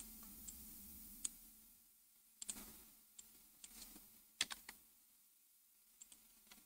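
Faint, irregular clicking of a computer keyboard and mouse as keys are pressed and clicked during modelling, with some clicks coming in quick pairs.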